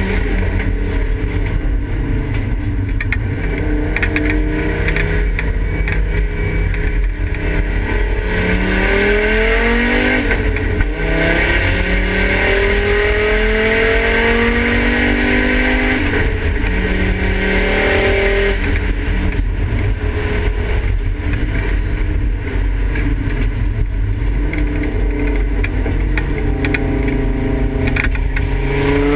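Volvo 850 race car's five-cylinder engine at full throttle, heard from inside the stripped cabin: its note climbs in pitch several times and drops back at each gear change, over a steady low rumble.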